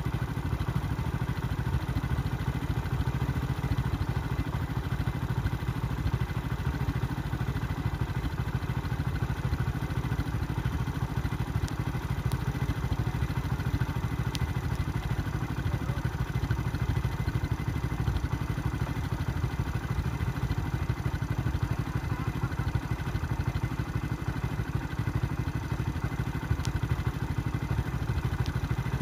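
A vehicle engine idling steadily, a low, even rumble, with a few faint ticks over it.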